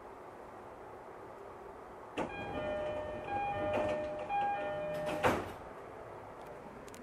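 Door chime of a JR East E231-series commuter train: a two-tone chime alternating for about three seconds, then the sliding doors thud shut near the end as the train gets ready to leave the station.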